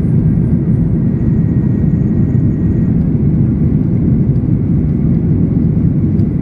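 Steady low rumble of a Boeing 737-800's CFM56-7B jet engines and rushing air, heard inside the passenger cabin during the climb after takeoff.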